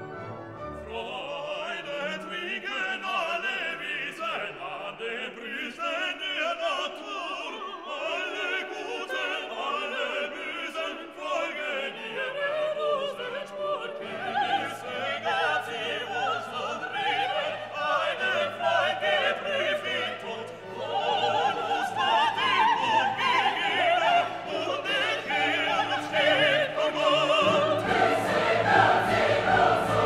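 Background music: operatic singing with choir and orchestra, growing fuller and louder near the end.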